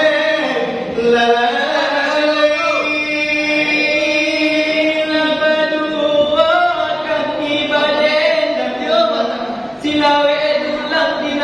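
Chanted singing in Minangkabau salawat dulang style: a voice holding long notes that bend and wobble in pitch, with a short break about ten seconds in.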